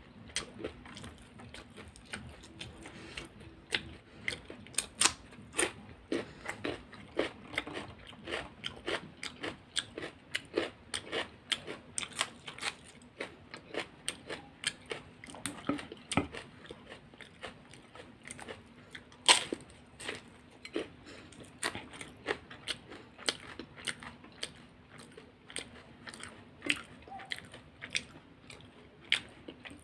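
A person chewing and biting crunchy food: a steady run of crisp crunches, one or two a second, with one sharper, louder crunch about two-thirds of the way through.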